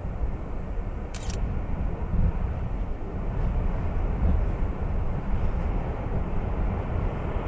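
Steady low rumbling roar, with a short hiss about a second in.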